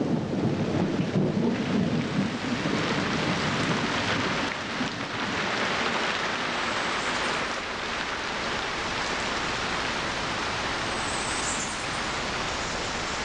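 Heavy tropical rain falling steadily, with a low rumble of thunder over the first few seconds that fades, leaving an even hiss of rain.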